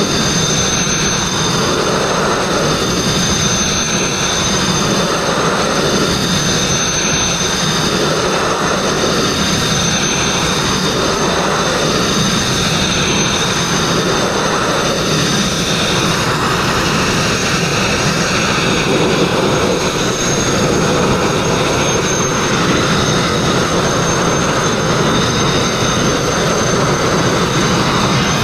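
Sandblasting nozzle firing continuously at a steel boat hull: a steady loud rush of compressed air and grit with a faint high whistle on top, stripping old paint and rust.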